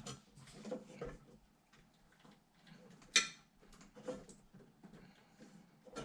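Irregular clicks and knocks of hands working inside a PC case while connecting cables, with a sharp click about three seconds in.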